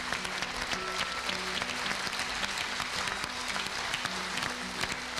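A crowd applauding, with music of held, slowly changing notes playing underneath.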